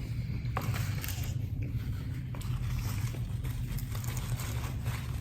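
Close-up chewing of a crispy fried peach mango pie, with small crunches and mouth clicks scattered throughout, over a steady low hum.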